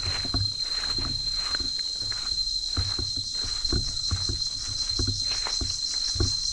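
Footsteps on a dirt trail littered with dry leaves, about two steps a second, under a steady high-pitched insect trill, with a pulsing insect chirr growing stronger near the end.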